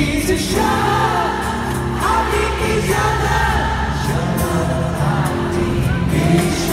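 Live pop music: a man singing lead into a microphone over the band's accompaniment.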